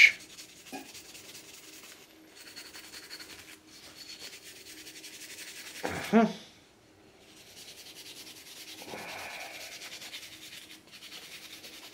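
Hand wire brush scrubbing the old metal swamp cooler motor pulley in stretches of scratchy rubbing, cleaning it up so it won't chirp. A brief voice sound cuts in about six seconds in.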